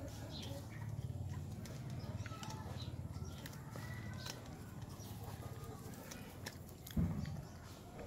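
Two puppies eating small fish heads from a metal bowl: chewing, crunching and smacking, with many small clicks. A dull thump about seven seconds in.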